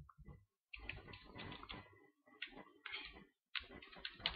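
Faint computer-keyboard typing, an irregular run of keystroke clicks in quick clusters as a file name is typed.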